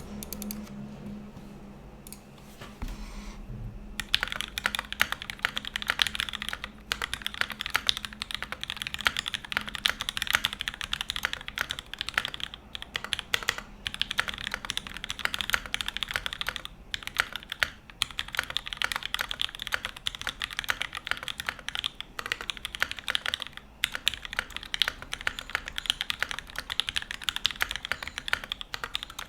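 Fast, continuous typing on a Space65 R1 custom mechanical keyboard with lubed and filmed Alpaca linear switches, GMK keycaps and an aluminum plate, with no foam dampening. The typing starts about four seconds in and runs on with a few brief pauses.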